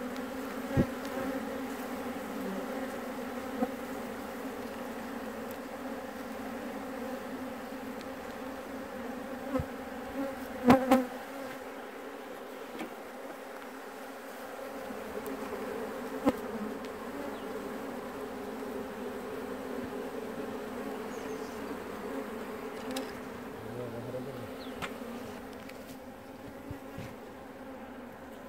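Steady dense buzzing of a honeybee colony as its comb is handled and set into a wooden hive. Scattered sharp knocks of wooden hive frames being handled break in, the loudest a short cluster about eleven seconds in.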